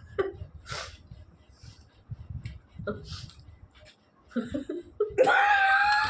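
A person's short, breathy hisses and sniffs, then about five seconds in a loud, drawn-out vocal wail, a reaction to the burn of very hot chilli.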